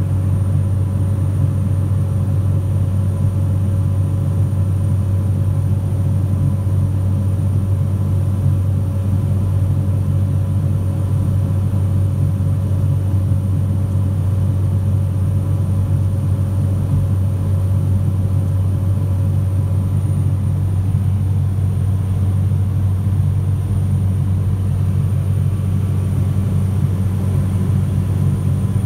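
Steady low drone of a light aircraft's engine and propeller in cruise, heard inside the cabin, holding one pitch and level throughout.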